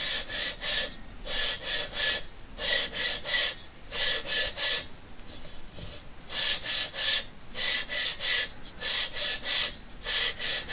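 An old cylinder barrel being twisted back and forth by hand on a VW 2-litre air-cooled cylinder head's sealing surface with fine grinding paste: a gritty rasping in short bursts of three or four strokes, with a longer pause about halfway through. The barrel is lapping the head's sealing surface true.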